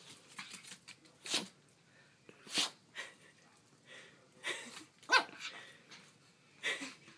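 Two papillon dogs making a series of short, sharp breathy sounds, about six of them spaced a second or so apart, with quiet in between.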